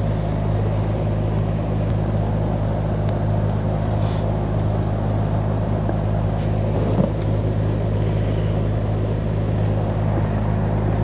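Steady low hum of background machinery, with a few faint clicks and scrapes as gloved hands seat the fuel pump module and its rubber seal in the fuel tank opening.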